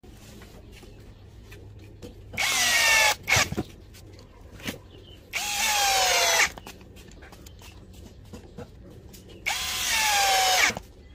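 DeWalt cordless drill-driver driving hex-head self-drilling roofing screws into a wooden beam: three runs of about a second each, the motor's whine falling in pitch as each screw bites and seats.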